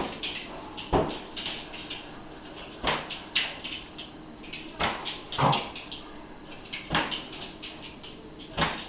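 A rubber balloon being batted into the air while a border collie leaps at it: about seven sharp thumps, a second or two apart.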